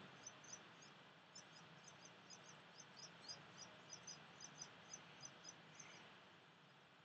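Faint, rapid high-pitched chirping, about four short chirps a second over a low hiss, which stops about six seconds in.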